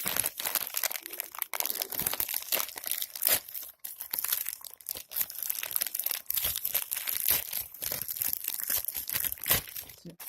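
Delivery packaging being pulled, torn and crumpled open by hand: a continuous run of crinkling, rustling and tearing with many small sharp crackles.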